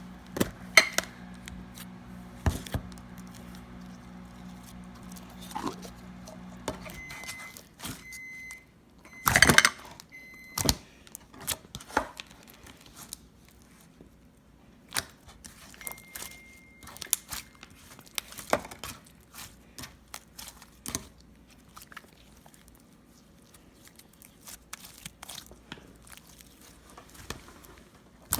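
Slime being handled: scattered clicks, pops and crackles as it is squeezed and pulled, the loudest cluster about nine seconds in. A low steady hum runs under it for the first seven seconds.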